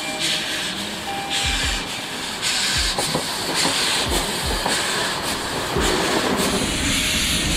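Ty2 class two-cylinder 2-10-0 steam locomotive moving off slowly under load: exhaust chuffs about once a second, each with a burst of hiss, and steam hissing from open cylinder drain cocks. Low thumps come under the chuffs.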